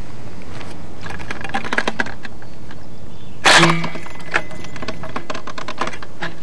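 Handling noise from an M72 light anti-tank rocket launcher being prepared for firing. There are scattered small metallic clicks and rattles, and one sharp clack about three and a half seconds in, all over a steady hiss.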